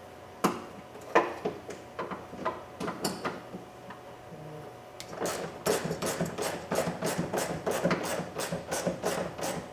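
Socket ratchet with an extension tightening a 10mm nut: a few scattered clicks and knocks, then from about five seconds in a quick, even run of ratchet clicks, about four or five a second.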